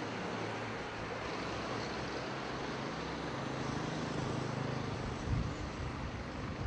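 Outdoor background noise: a steady low engine hum of road traffic, with wind rumbling on the microphone from about five seconds in.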